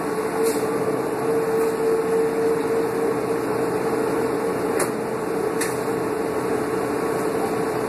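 Steady hum inside the cabin of a 2005 New Flyer D40LF diesel transit bus, from its Cummins ISL engine and air-conditioning running, with one even mid-pitched drone and a few faint ticks.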